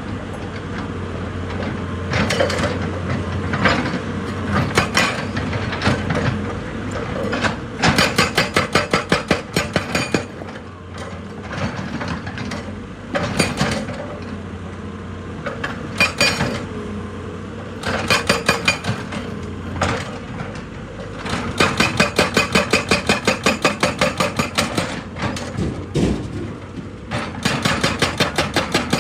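Excavator's hydraulic rock breaker hammering on rock in several bursts of rapid, evenly spaced blows, about six a second, with scattered single knocks between, over the steady running of the diesel engine.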